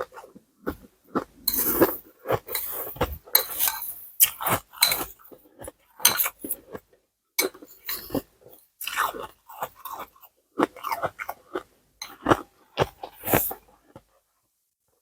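Ice being chewed close to the microphone: rapid, irregular crunching with a few short pauses.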